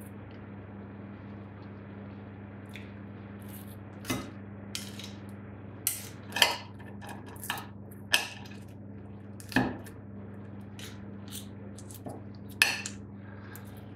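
Steel knife and fork clinking and scraping on a ceramic plate while a sausage is cut, in about ten irregular knocks starting about four seconds in. A steady low hum runs underneath.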